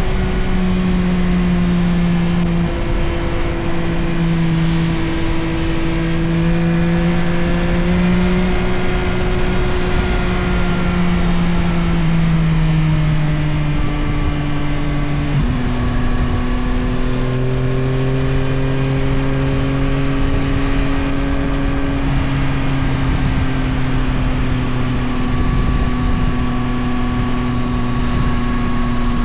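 Yamaha Tracer 9 GT+'s 890 cc CP3 inline-three engine running under way on the road, its note steady and easing slowly lower in pitch, then dropping abruptly about halfway through and holding steady at the lower pitch.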